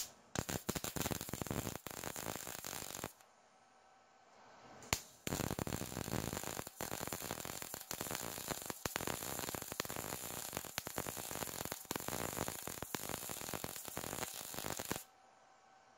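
MIG welding arc from a Harbor Freight Titanium Unlimited 200 running C25 gas and .030 solid wire on 14-gauge steel at 165 wire speed and 17 volts: a steady crackle. It runs as a short bead of about three seconds, stops for about two seconds, then runs about ten seconds more and stops near the end.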